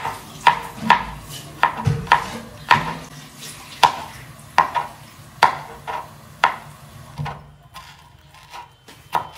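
A kitchen knife chopping on a cutting board: sharp, even taps about every half second that slow and fade after about seven seconds, with one last tap near the end.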